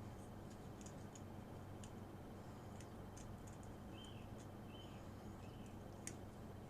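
Faint scattered clicks and small handling noises from working at a spade connector crimped too tight to pull easily off its pin, with a couple of small squeaks around the middle and one sharper click near the end.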